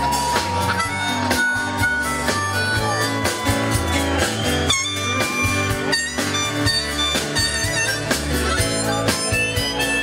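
Live band playing an instrumental break led by a harmonica solo over electric guitars, bass and drums. The harmonica holds one long note and bends it down about three seconds in, then plays shorter phrases.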